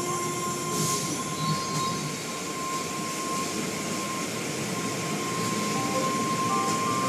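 Automatic car wash heard from inside the car: brushes and water spray working over the windshield as a steady rushing noise, with a steady high-pitched whine over it.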